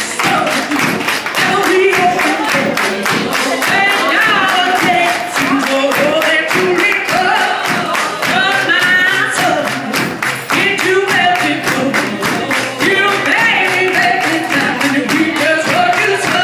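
A woman singing a melody live into a microphone through a PA, over accompanying music with a steady beat.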